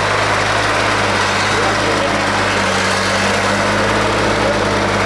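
Small vintage tractor's engine running steadily as the tractor drives through deep mud.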